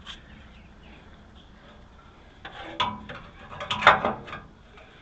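A short clatter of knocks and clicks, the sound of hard parts or tools being handled, starting about two and a half seconds in and loudest just before the four-second mark.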